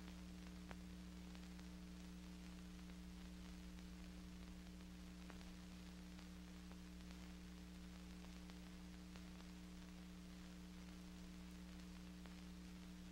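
Near silence: a steady low electrical hum under faint hiss, with a single faint click about a second in.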